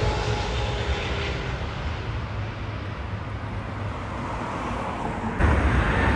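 Jet airliner engines rumbling as the plane passes and moves away, the roar slowly fading while a whine glides down in pitch. A little over five seconds in, the roar abruptly jumps louder.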